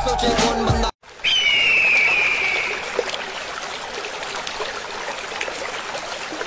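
Background music that cuts off abruptly, then a steady rush of water with a bird's drawn-out, slightly falling call starting about a second in.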